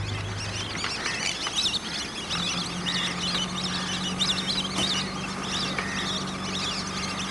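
Chorus of many birds calling at once: dense, overlapping high chirps and whistles. Under it runs a steady low hum that starts about two and a half seconds in.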